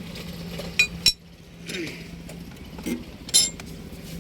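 Sharp metal-on-metal clinks over a steady low hum: two close together about a second in, and another loud one near the end.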